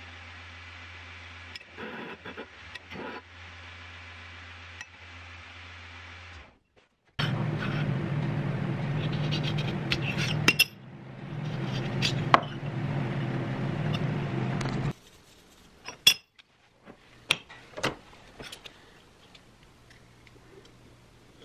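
A belt grinder running with a steady hum, which stops about six seconds in. A louder steady machine noise with a few sharp clicks follows for about eight seconds. Near the end come scattered sharp clinks of a steel blade and metal pieces set down on a granite surface plate.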